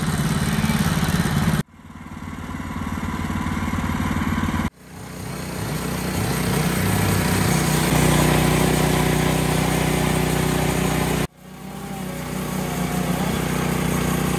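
Petrol engine of a Woodland Mills HM130 portable bandsaw mill running steadily as the band blade saws through dawn redwood. The sound cuts off abruptly three times and builds back up each time.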